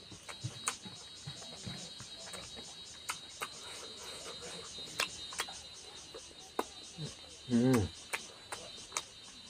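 Close-up eating sounds of rice and duck curry eaten by hand: scattered sharp mouth-smacking and chewing clicks. A steady, rapidly pulsing cricket chirp runs underneath, and a short vocal hum from the eater about three-quarters of the way through is the loudest sound.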